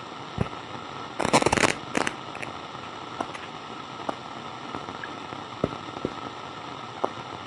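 Steady walkie-talkie static hiss with scattered sharp crackles and pops, and a short burst of dense crackling about a second and a half in.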